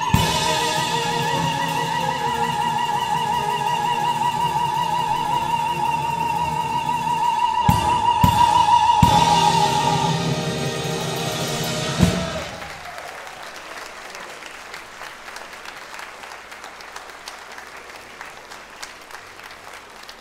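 Soprano holding a long high note with wide vibrato over the full orchestra. The orchestra closes on a final accented chord about twelve seconds in, and audience applause follows and slowly dies down.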